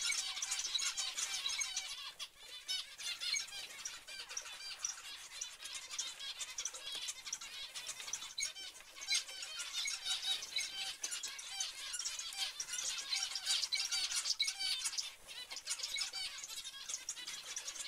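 A flock of zebra finches calling, a dense chatter of many short, high-pitched calls that overlap continuously and dip briefly a few times.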